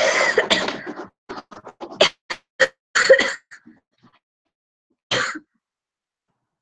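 A person coughing: a long rough cough at the start, then a run of short coughs, and one more about five seconds in.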